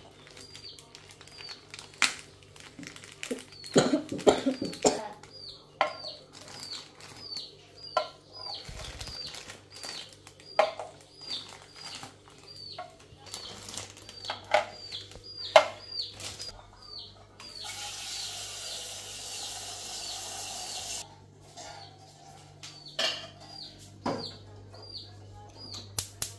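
Baby chicks peeping over and over, a short falling cheep roughly every second. Under them come clinks and knocks of quail eggs and a steel saucepan being handled, and a few seconds of running water past the middle.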